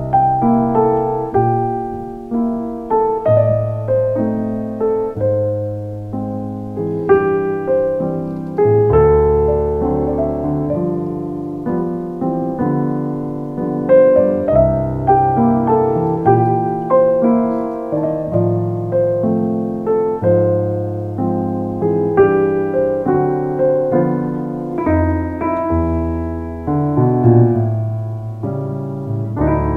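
Piano music: a melody of struck notes, each fading away, over slower bass notes.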